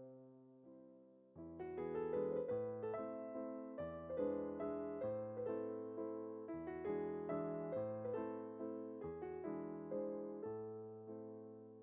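Background piano music: soft notes for the first second and a half, then a steady, flowing run of piano notes.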